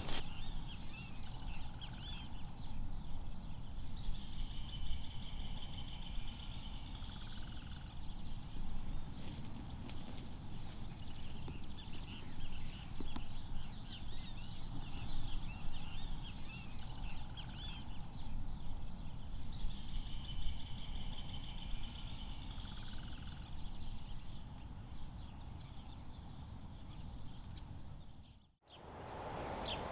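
Natural wetland ambience: a steady high-pitched insect trill, scattered bird chirps and a low wind rumble. It cuts off suddenly near the end, giving way to a different outdoor ambience.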